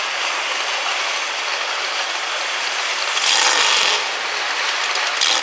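V8 engine of a hot rod pulling tractor running at the end of a pull, smoke still coming off it, with a louder burst for under a second about three seconds in.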